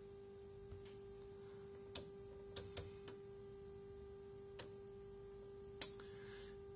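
A faint steady mid-pitched hum from the running amplifier test bench, with a handful of small, sharp clicks spread through it as the signal generator's controls are worked.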